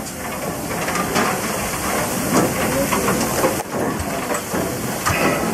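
Steady hiss of a water hose spraying hot ash dumped from a steam locomotive's firebox, with steam hissing and crackling off the quenched ash.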